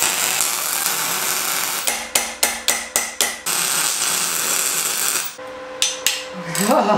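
Wire-feed welder's arc crackling and hissing steadily. For about a second and a half in the middle it breaks into a run of short stop-start pulses, then runs steadily again. It stops a little after five seconds in, and a few clicks of a hand tool follow.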